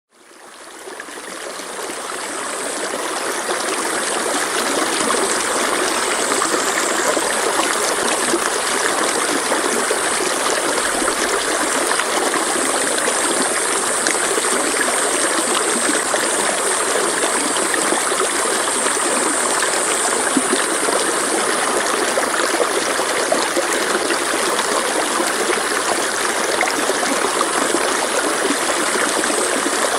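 Mountain stream flowing and splashing over rocks: a steady, even rush of water that fades in over the first few seconds and then holds level.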